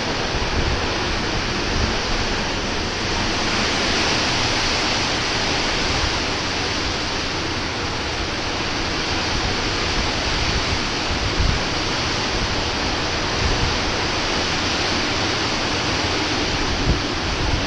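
Hurricane-force wind blowing hard and without a break, a dense rushing noise, with low buffeting rumbles of the wind hitting the camera's microphone.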